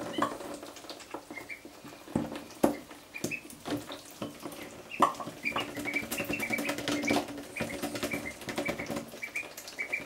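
Call ducklings peeping in runs of short, high chirps, with scattered taps and clicks and two sharp knocks about two and a half and five seconds in.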